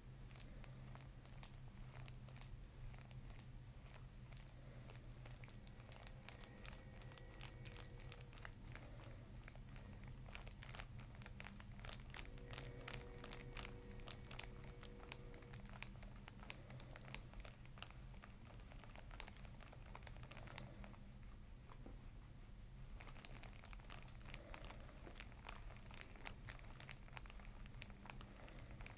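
Faint, fine crinkling and rustling as fingertips work into the hair and the paper-covered headrest at the base of the skull during a suboccipital massage, over a steady low room hum.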